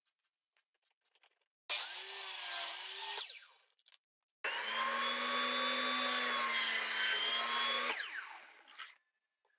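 Table saw running and cutting, in two runs that start abruptly. The first is short, and its pitch dips and rises under load. The second is a steady run of about three and a half seconds that winds down with a falling pitch.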